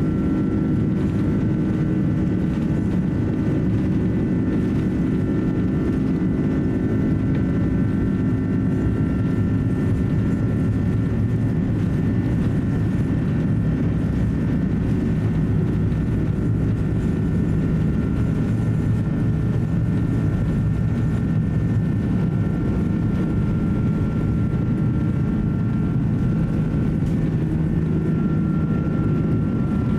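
Cabin noise inside an Airbus A330-300 taxiing: a steady engine and airframe rumble with a few thin, steady high whine tones, one growing a little stronger near the end.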